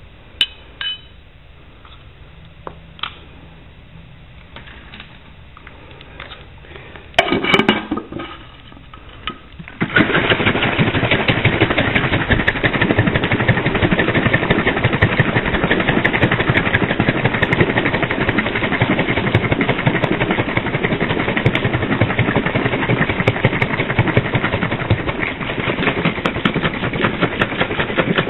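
A few knocks and clinks of a glass jar being handled. About ten seconds in, a loud, continuous rattle and slosh starts suddenly: a lidded jar of water, soil, motor oil and flocculant being shaken hard to mix it.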